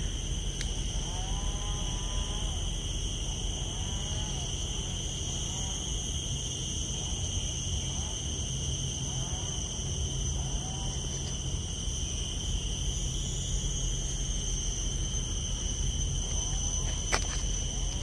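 Steady, high-pitched drone of an insect chorus over a low outdoor rumble, with a few faint short rising-and-falling calls in the distance.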